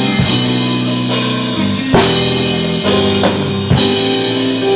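Live gospel band playing without vocals: a drum kit with cymbal crashes about two seconds in and again near the end, over guitar and sustained chords.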